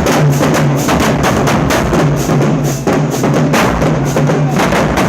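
Marching band playing on the move, its drumline loud with rapid snare and bass drum strokes over low sustained notes.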